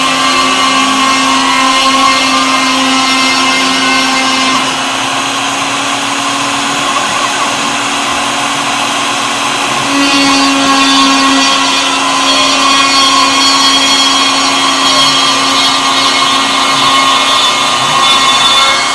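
Homemade CNC router at work: the RotoZip spindle motor runs with a steady whine while the NEMA 23 stepper motors whir in faint rising and falling pitches as the bit cuts into the board. It gets a little quieter about five seconds in and louder again around ten seconds.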